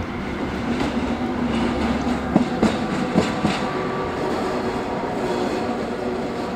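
Diesel shunting locomotive running light: a steady engine hum, with a few sharp wheel clicks over rail joints or points about two and a half to three and a half seconds in. A short knock comes at the very start.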